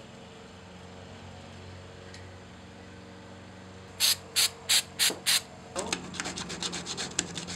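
Hand sanding with a folded sheet of sandpaper on a glued-in wooden trim strip: about four seconds in come five loud scraping strokes, then quick short back-and-forth rubs, several a second.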